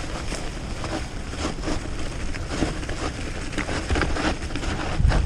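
Wind rumbling on the microphone of a moving rider, with irregular crackling over it.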